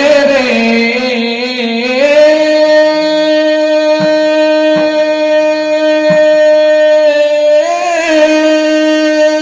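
A man singing Bundeli phag folk song through a loud PA. His line moves for the first two seconds, then settles into one long, steady held note, with a brief waver near the end. A few faint knocks sound under the note.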